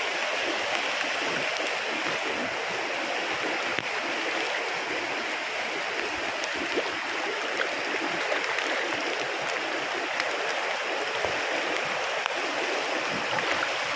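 Steady rush of a fast-flowing river running over rocky rapids, with heavy rain falling on the water.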